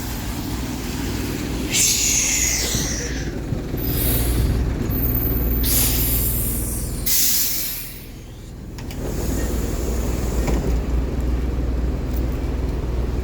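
A bus's diesel engine running, with four hisses of air from its air brakes in the first part.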